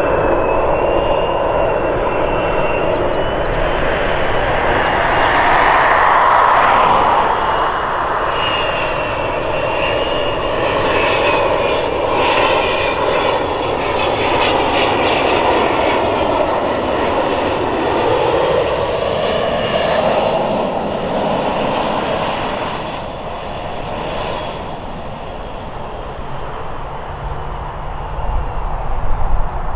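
The two Pratt & Whitney Canada PW306D1 turbofans of a Cessna 680A Citation Latitude business jet on landing approach: a steady jet rush with a thin high whine, loudest a few seconds in. The sound fades in the second half as the jet flares to land, and a low rumble comes up near the end.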